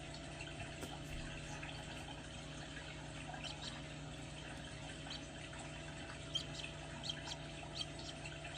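Small dome egg incubator running with a steady hum, with a few short, high peeps, mostly in the second half, from the Serama chick inside the pipped egg.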